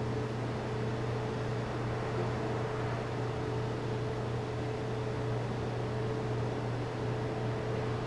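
Steady machine hum, a low drone with a faint higher tone over an even hiss, unchanging throughout.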